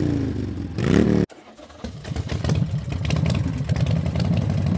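Motorcycle engine revving: its pitch drops, then climbs sharply about a second in and cuts off suddenly. After a brief gap, a motorcycle engine idles with an uneven beat.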